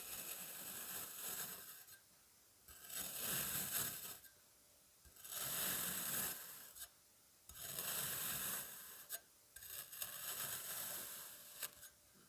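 Kinetic sand being cut in slow strokes, a gritty scraping with each stroke: five strokes, each a second or two long, with short pauses between.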